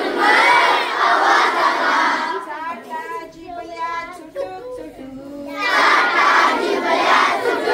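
Call-and-response action song. A large group of schoolboys sing a line together, then a woman sings a line alone from about two and a half seconds in, then the boys sing together again near the end.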